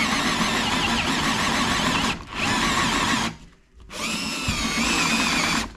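Cordless drill boring a hinge-cup hole with a Forstner bit through a Kreg concealed hinge jig into a wooden cabinet door frame. The motor runs steadily under load, stops about three seconds in, then starts again with a rising whine and runs on.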